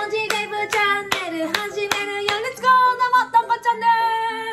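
A woman clapping her hands in a steady beat, about two and a half claps a second, while chanting in a high voice. Just past halfway the clapping stops and she holds one long sung note.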